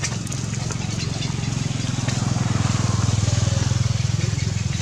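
Engine of a passing motor vehicle, a low pulsing rumble that grows louder to a peak about three seconds in and then eases off.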